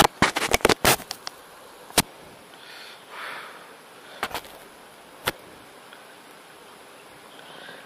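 Small hooked hampala barb thrashing at the water surface on a topwater lure: a quick flurry of sharp splashes in the first second, then three single splashes a second or so apart.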